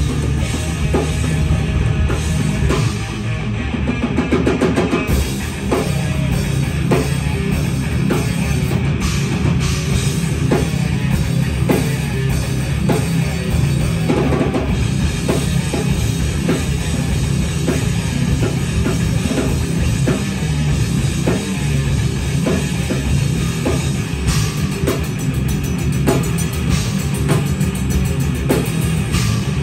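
Heavy metal band playing live: distorted electric guitars through a valve amp stack over a drum kit pounding out a steady rhythm with kick drum and cymbals.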